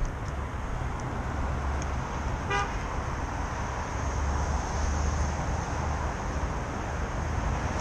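Street background with a steady low rumble, and one very short car horn beep about two and a half seconds in.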